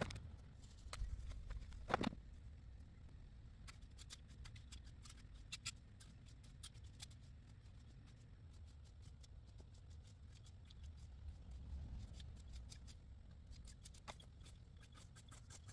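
Wood bonfire crackling: irregular small pops and snaps, with a louder snap about two seconds in.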